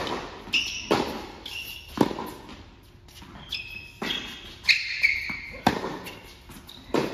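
Tennis ball struck by racquets and bouncing on an indoor hard court during a rally, a sharp hit or bounce every second or two, each echoing in the hall. Short high squeaks of sneakers on the court come between the shots.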